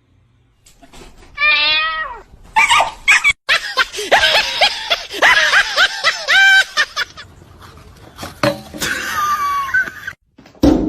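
Domestic cat meowing and yowling in a string of drawn-out, wavering calls, with a sudden knock near the end.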